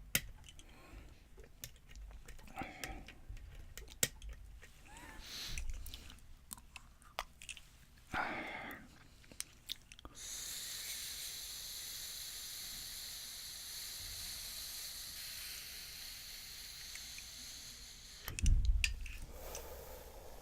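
Small clicks, ticks and scrapes of lock picks and a tension wrench working in a pin-tumbler lock cylinder, with brief handling rustles. About ten seconds in, a steady hiss starts and runs for roughly eight seconds, and a louder knock with a low thud comes near the end.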